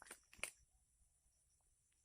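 Two brief knocks or rustles about a third of a second apart, the second louder, over a faint steady high-pitched hiss.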